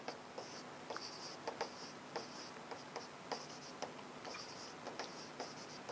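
Faint handwriting: short scratchy strokes and light taps of a writing tool, a few a second, with no talking.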